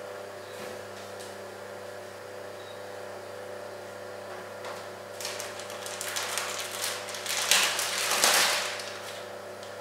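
Plastic bread packet rustling and crinkling as it is handled, starting about five seconds in and loudest near the end, over a steady low hum.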